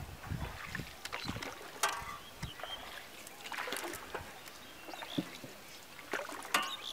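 Quiet background in a wooden fishing boat on a river: a soft steady hiss of water and air with a few light knocks and clicks, and brief faint voices in the distance.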